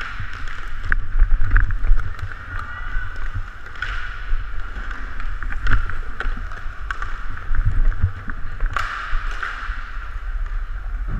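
Low rumbling motion and wind noise on a helmet-mounted action camera as a hockey player skates, broken by several sharp clacks of sticks and puck.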